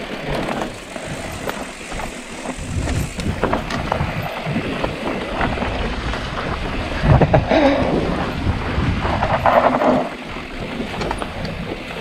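Wind buffeting the microphone over the rattle of a mountain bike riding down a loose, dusty trail: tyre noise on dirt and gravel with many small knocks and clatters from the bike over bumps, louder about seven seconds in.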